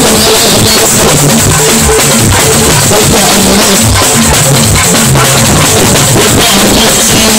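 Loud live Fuji band music, dominated by busy, continuous drumming.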